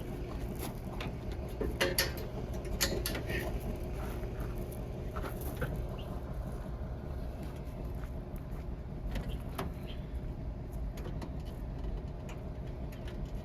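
An engine idling steadily, with scattered light clicks and knocks over it.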